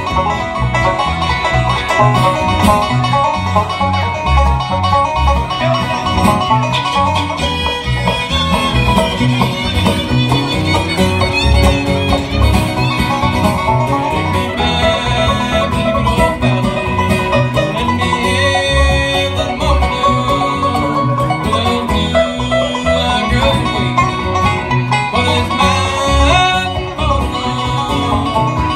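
Live bluegrass band playing an instrumental passage: strummed acoustic guitar, fiddle and a plucked bass line with a steady beat, amplified through the stage PA.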